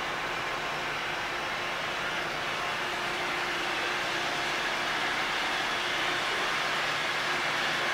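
Steady machinery noise from a ship's engine room, heard muffled through the walls of an adjoining store room, with a few faint steady hums in it. It grows slightly louder near the end.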